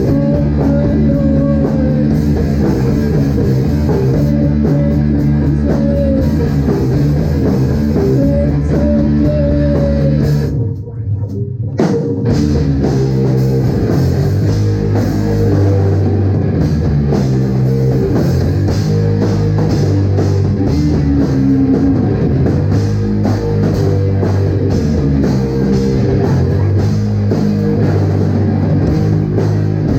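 Live rock band playing loudly: guitar, bass and drum kit, with a brief break about eleven seconds in before the full band comes back in.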